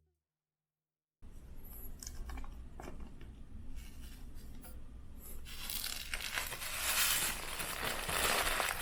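Dense crinkling and tearing noise that starts after about a second of silence and gets louder about halfway through.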